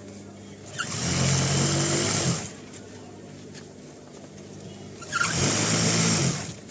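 An electric machine motor running in two short bursts of about a second and a half each, switched on and off, with a faint steady hum between them.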